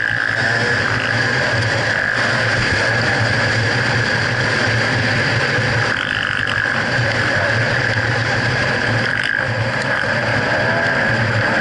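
2011 GasGas EC300 300 cc two-stroke single-cylinder enduro engine running at a fairly steady pace under way, heard from a camera on the bike, with wind noise over the microphone.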